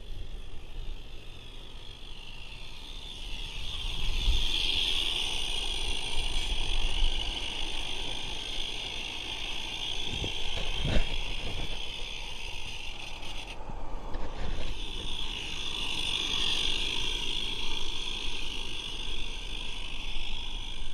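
A live steam garden-railway train running on the track, heard close up: a steady hiss with rumbling and rattling from the wheels and rails. The sound grows louder about four seconds in, drops away briefly later, and has one sharp knock about halfway through.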